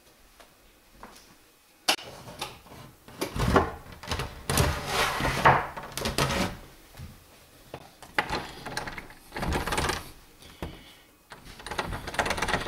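A door knob clicks, then the door rattles repeatedly in several bouts as someone turns the handle and pulls at it. The door is locked shut.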